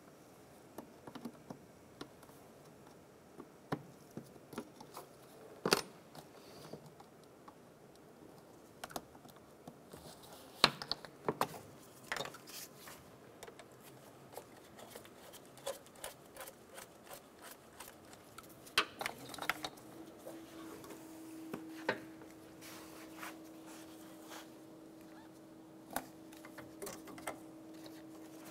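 Light, scattered clicks and knocks of hands working on a car's plastic airbox and air intake. A faint steady hum comes in about two-thirds of the way through.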